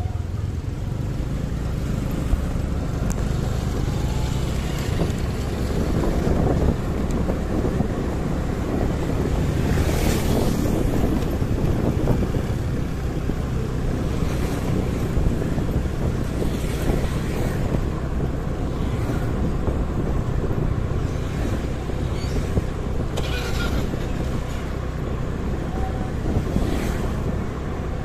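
Street traffic heard from a motorcycle riding through the city: a steady low engine rumble with wind on the microphone. Several other vehicles pass, about five times, each a brief rushing swell.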